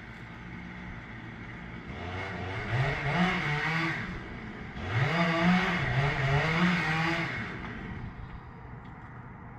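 Two-stroke chainsaw revving up and down in two spells, about two seconds in and again about five seconds in.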